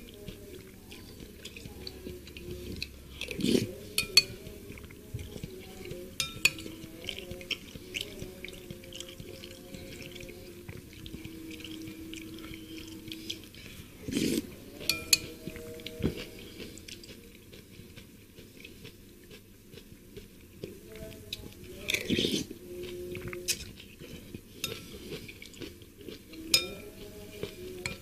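Eating seblak with a metal spoon from a bowl: the spoon clinks and scrapes against the bowl, with slurps and chewing of the broth, softened crackers and greens. The clinks come irregularly, in brief clusters about three and a half seconds in, near the middle and about twenty-two seconds in.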